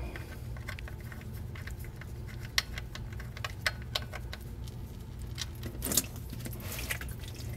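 Oil drain plug being unscrewed by hand from the oil pan of a 2008 Volvo XC90, giving scattered light metallic clicks and ticks, with a sharper click about two and a half seconds in and another about six seconds in.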